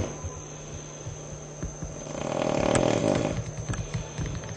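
A person snoring: a rattling snore on one breath, swelling about two seconds in and lasting around a second, with quieter rattling before it and another snore beginning near the end.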